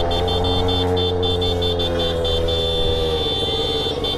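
Road traffic in a motorcade: vehicle engines running steadily under a long, held horn blast, with a higher horn tooting on and off.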